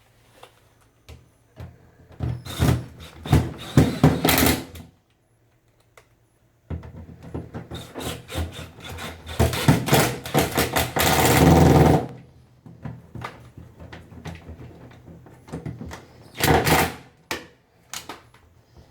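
Screws being driven to fasten a replacement door lock assembly on a Samsung front-load washer, heard as metal-and-plastic clicking and scraping. It comes in a few seconds of bursts, a longer continuous stretch that ends abruptly about twelve seconds in, and a brief burst near the end.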